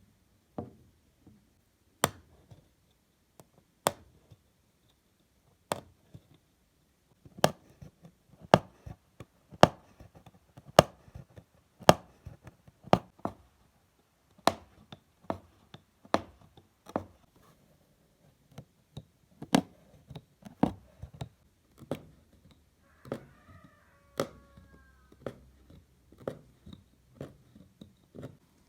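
A long series of sharp knocks and taps, irregular at about one a second, as of objects being handled and set down on a hard surface, with a short squeak near the end.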